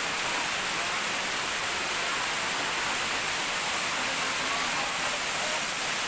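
Steady rush of water from a waterfall cascading down a rock face.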